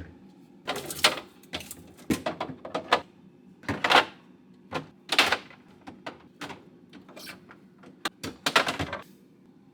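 Irregular knocks, clicks and short clattering bursts of food and plastic containers being handled and moved around a fridge during reorganizing.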